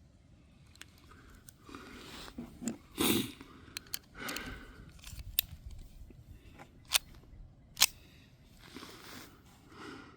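Hands working a Jimenez JA22 .22 LR pistol: rustling handling noise with several sharp metallic clicks, the loudest two near the end, from working the slide and action while clearing a misfire.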